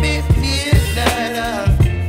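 Background music with a steady drum beat, a deep bass line and a wavering melodic line.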